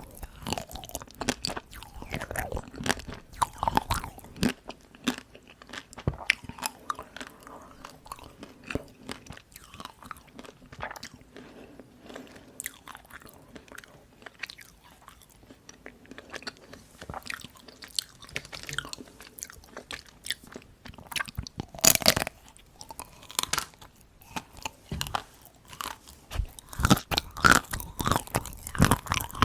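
Close-miked chewing and crunching of bite-size chocolate-coated ice cream pieces (dark chocolate Tico), a steady run of small crisp cracks as the hard chocolate shell breaks. One loud crunch comes about two-thirds of the way through, and the crunches grow denser near the end.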